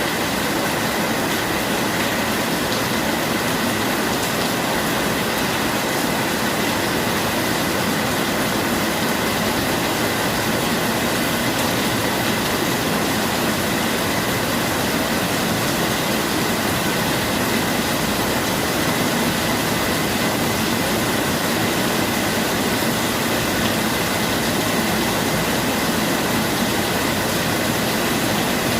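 Steady, heavy rainfall: an even, unbroken hiss of rain.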